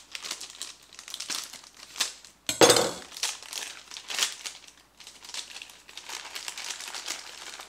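Plastic bag of shredded Parmesan cheese crinkling and rustling as it is handled, with a louder thump about two and a half seconds in.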